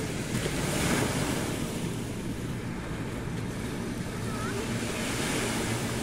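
Small waves breaking and washing up the sand, swelling about a second in and again near the end, with wind rumbling on the microphone.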